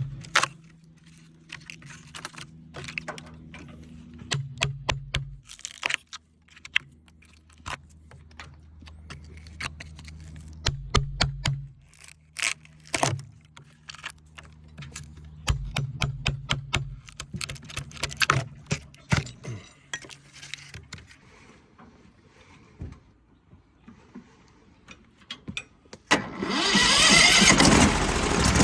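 Irregular sharp metal clinks and knocks as old iron spikes are worked out of a cedar dock pole, over a low engine hum that rises and falls in steps. Near the end a much louder machine noise starts up and continues.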